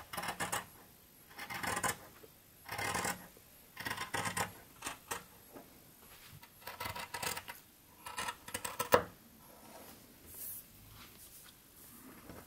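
Scissors cutting through fabric along a curved line: a series of rasping snips, roughly one a second, ending about nine seconds in with a sharp click. Softer rustling of the fabric being handled follows.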